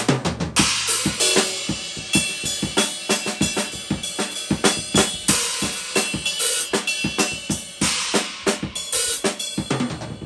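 Acoustic drum kit played in a fast rhythm: rapid snare and bass drum hits under ringing cymbals, with cymbal crashes washing over it about half a second in and again around eight seconds in.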